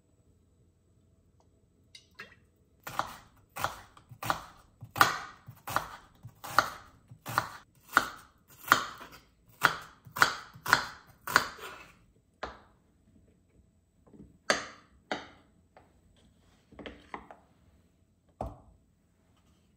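Kitchen knife slicing onions on a wooden cutting board: after a short quiet start, a steady run of sharp knocks about two a second as each slice hits the board, then a few scattered knocks in the last few seconds.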